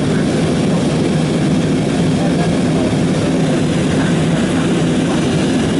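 Steady cabin noise of an airliner's jet engines and rushing air during the climb after takeoff, an even low rumble with no breaks.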